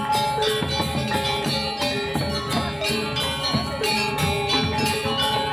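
Balinese gamelan playing: many ringing metallophone tones over quick, steady repeated strokes.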